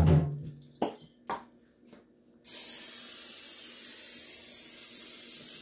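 A couple of light knocks, then, about two and a half seconds in, an aerosol can of nonstick cooking spray starts hissing steadily as it coats a glass casserole dish.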